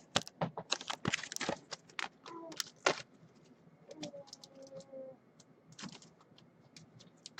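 Trading cards and their plastic top loaders and sleeves being handled and sorted: a quick run of clicks and rustles in the first three seconds, then sparser clicks, with a faint whine about four seconds in.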